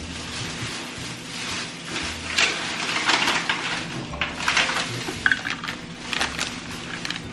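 Wooden chopsticks scraping and tapping against a stainless steel bowl while rolling a date through melted chocolate: a run of irregular clicks and scrapes, one with a brief metallic ring about five seconds in.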